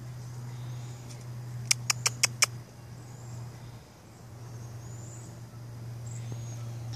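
Five sharp clicks in quick succession about two seconds in, over a steady low hum.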